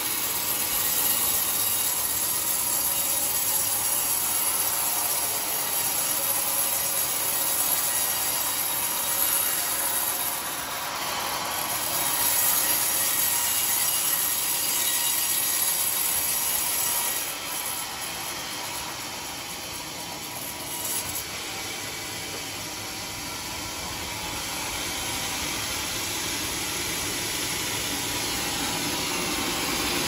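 Vertical band sawmill blade cutting lengthwise through an old coconut-palm (glugu) beam, a steady rasping whine. It gets quieter about seventeen seconds in, then builds again toward the end.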